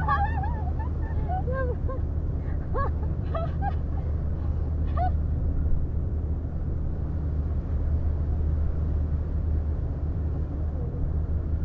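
Steady low drone of the car ferry Ritsurin 2's engines heard on deck, with wind and sea noise. A few faint short pitched calls come in the first five seconds.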